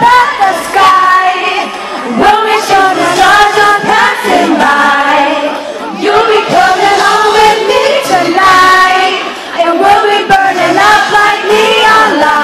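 A live pop song, with sung vocals over a backing track, recorded loud and close.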